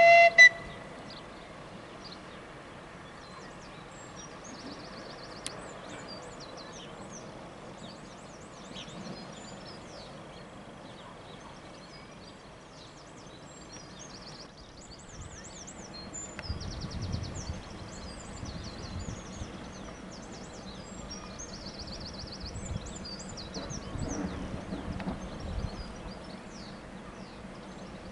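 Small birds chirping and trilling over steady outdoor background noise, with a few faint low rumbles partway through. The miniature locomotive's whistle cuts off just after the start.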